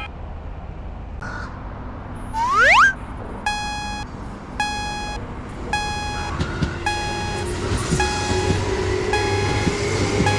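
A quick rising whistle-like sweep, then a Japanese level-crossing warning bell starts ringing at about one stroke a second, joined about halfway by a second, higher-pitched crossing alarm. Under it from about halfway the low rumble and clacks of an approaching train build up.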